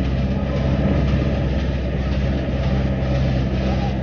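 Vehicle engine running at a steady, even speed, with a continuous low drone.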